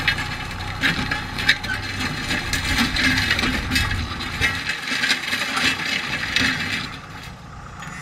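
Kubota M6040SU tractor's diesel engine running as it pulls a disc harrow through dry ground and brush, with frequent crackling and snapping from the discs and the breaking stalks. The sound grows quieter near the end as the tractor moves away.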